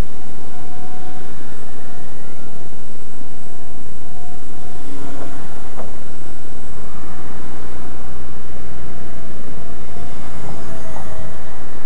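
Blade 130 X electric micro RC helicopter in flight, its motor and rotor whine wavering in pitch as it manoeuvres, over a loud rumbling noise.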